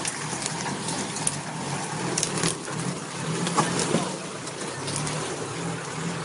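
Toyota 4x4's engine running at low, steady speed as the vehicle crawls along, with scattered cracks and crunches of twigs and leaf litter.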